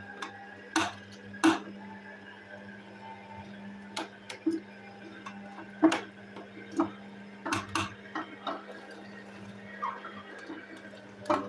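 Vertical slow juicer's motor running with a steady hum while pomegranate pieces are fed in, with irregular sharp clicks and cracks as the pieces drop into the hopper and are crushed.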